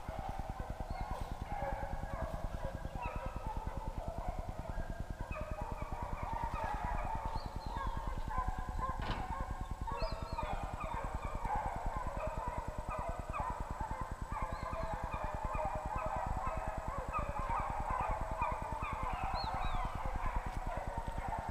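A pack of deer hounds baying on a chase, many voices overlapping throughout, over a steady low rumble.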